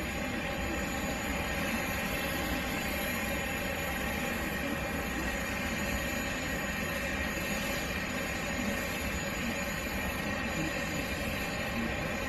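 Jet aircraft engines running steadily on an airport apron: an even roar with a steady high whine.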